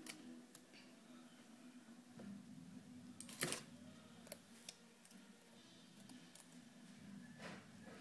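Faint rustling and small clicks of a rolled paper tube being handled, with one brief, louder scrape about three and a half seconds in, over a low steady room hum.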